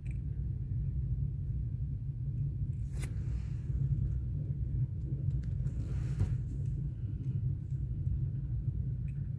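Freight train boxcars rolling past: a steady low rumble of steel wheels on rail, with two brief sharper noises about three and six seconds in.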